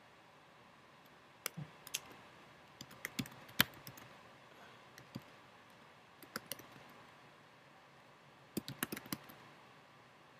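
Typing on a computer keyboard: scattered keystroke clicks in a few short bursts with pauses between.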